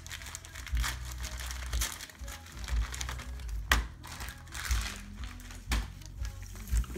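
Gift wrapping paper crinkling and tearing as Shetland sheepdogs rip open wrapped presents, with background music and two sharp knocks about a third and two-thirds of the way through.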